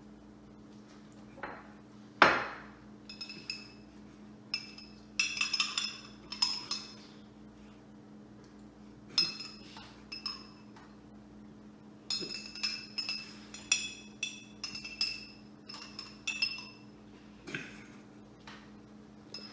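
A metal utensil clinking and tapping against dishware in irregular clusters of quick strikes, each ringing briefly, with one louder knock about two seconds in. A steady low hum runs underneath.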